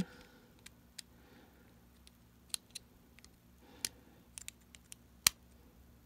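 Scattered small metal clicks and taps, about ten, as a small tool works the governor adjuster on the base of a Zippo double torch butane insert, pushing it back into place. The sharpest click comes about five seconds in.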